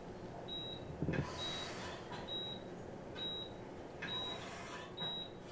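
Hospital patient monitor beeping steadily, a short high beep about once a second, with soft swells of hiss underneath.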